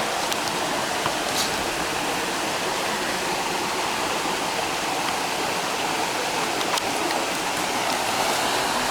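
Waterfall's rushing water, a steady even roar of falling water with no speech over it.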